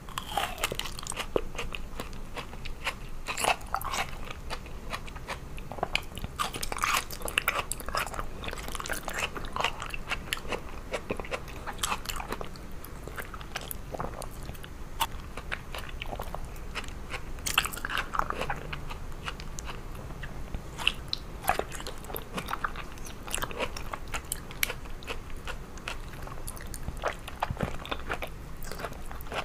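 Mouth sounds of someone biting into and chewing slabs of peeled aloe vera gel: a steady run of irregular sharp clicks and crunches.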